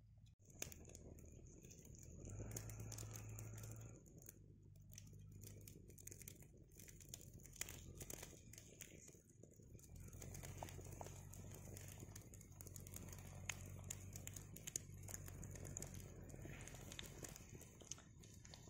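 Faint sizzling and crackling of egg paniyaram frying in oil in a cast-iron paniyaram pan over a wood fire, with scattered small pops.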